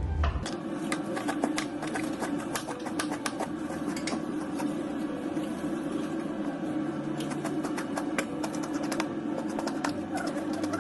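Kitchen knife chopping leafy greens on a cutting board in quick, irregular taps, over a steady low hum.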